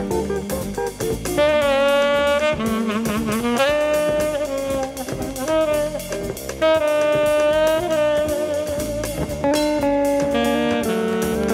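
Jazz saxophone playing a melody of long held notes with vibrato over bass and drums, with quicker phrases near the end. It is played back from a vinyl LP.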